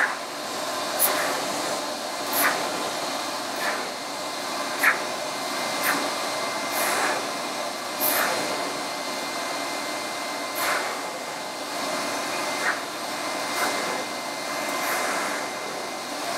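Metro Air Force Commander pet dryer blowing steadily at full power into a dog's coat. Short swishes come every second or two.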